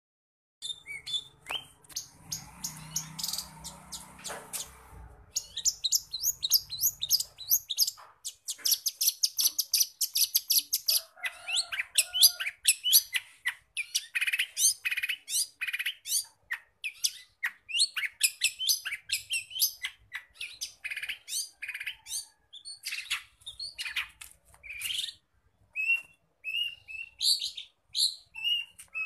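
Long-tailed shrike (cendet) singing without pause, a rapid stream of sharp, varied notes packed with mimicked calls, with a fast chattering run about a third of the way in.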